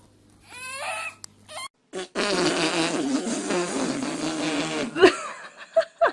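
A long fart lasting nearly three seconds, starting about two seconds in, with short pitched squeaky sounds just before and after it.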